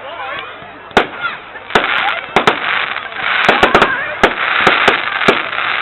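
Fireworks going off: about a dozen sharp bangs, some in quick clusters, over a crackling, fizzing hiss that thickens from about two seconds in.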